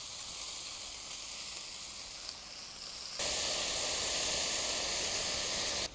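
Beef cubes and smoked bacon sizzling steadily as they sear in a cast-iron Dutch oven over hot charcoal, the meat giving off its juices as steam. The sizzle jumps louder about three seconds in.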